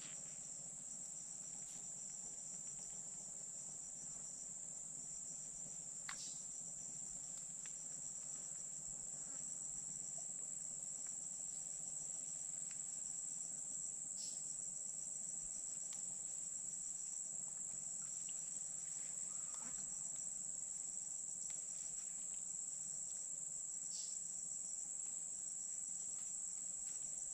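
Steady high-pitched chorus of insects, a constant buzz that does not vary, with a few faint clicks here and there.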